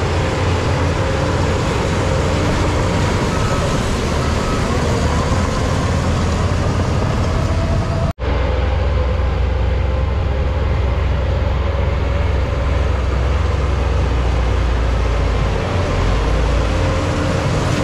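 Shantui crawler bulldozer's diesel engine running under load as the blade pushes soil, a steady heavy low rumble. The sound cuts out for an instant about eight seconds in, then resumes.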